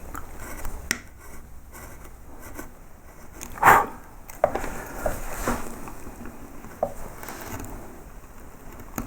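A carving V-tool making light cuts in wood: soft scraping and slicing strokes, with one louder stroke about three and a half seconds in.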